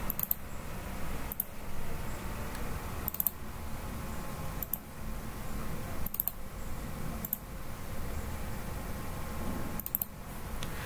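Computer mouse clicking, about seven sharp single clicks spaced a second or two apart, as line endpoints are placed in CAD software, over a steady low hum.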